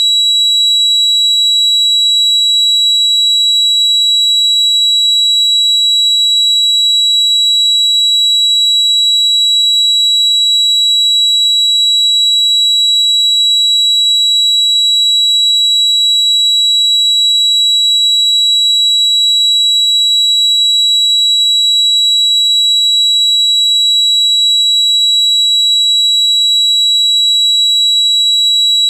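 A loud, steady, high-pitched ringing tone held without any change: a tinnitus-simulation sound effect.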